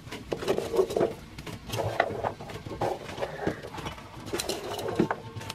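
Chopped taro leaf stalks dropped by hand into an earthenware cooking pot and pressed down: a light, irregular patter of pieces falling in, with small taps against the clay.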